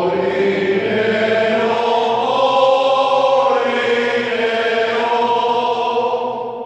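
Men's choir singing long, sustained chords in several voice parts, fading out near the end in a reverberant stone church.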